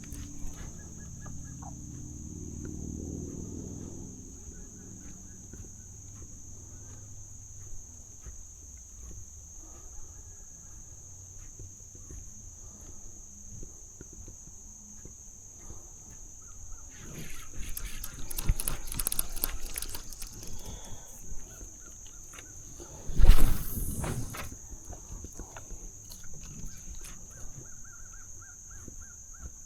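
Insects droning: a steady, high-pitched chorus. A stretch of rustling and handling noise comes around two-thirds of the way through, followed by a brief loud thump.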